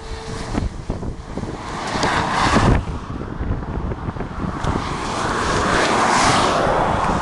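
A car passing on the highway, its tyre and road noise swelling to a peak past the middle and easing slightly near the end, over wind buffeting the microphone.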